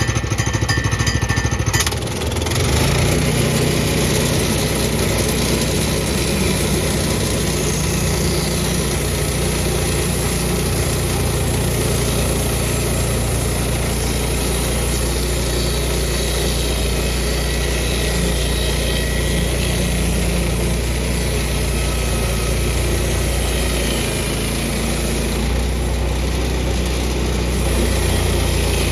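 Portable sawmill's engine running steadily while milling a redwood log into slabs; the engine speeds up about two seconds in.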